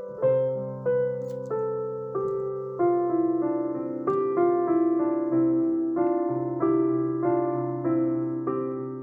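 Solo piano music: a slow melody of single struck notes, about two a second, each fading away, over held low bass notes.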